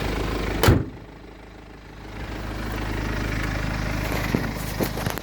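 BMW 318d's 2.0-litre four-cylinder turbo diesel idling steadily, with a single sharp knock about a second in. The engine sound dips for a second or so after the knock, then comes back to its earlier level.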